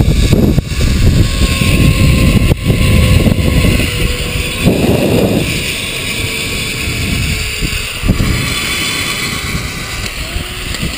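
Wind rushing over the microphone of a hand-held GoPro on a fast zipline ride, with a faint steady whine from the trolley's pulleys running along the steel cable. The rush eases over the second half as the rider slows on the approach to the landing platform.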